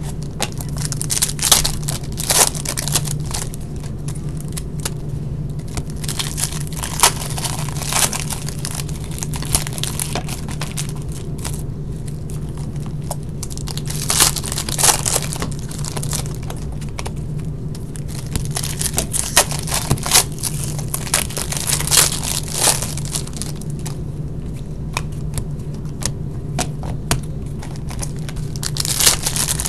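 Trading-card pack wrappers being torn open and crinkled by hand, in irregular crackling bursts over a steady low hum.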